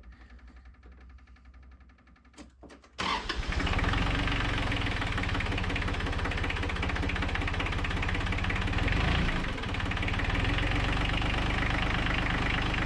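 Tractor engine cranking over, then catching about three seconds in and running steadily on a cold start.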